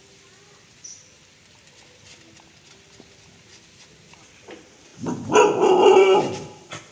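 A dog barking and snarling in one loud outburst lasting about a second and a half, about five seconds in.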